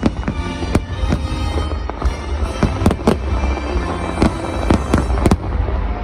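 Fireworks going off in a rapid, irregular series of sharp bangs over a loud music soundtrack with a deep low rumble.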